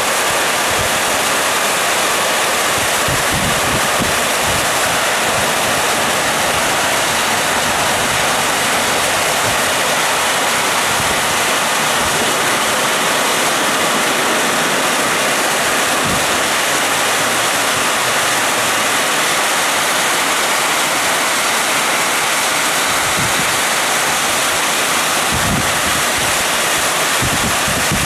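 Muddy flash-flood water rushing steadily down a steep rocky gully after a downpour, with a few brief low gusts of wind on the microphone.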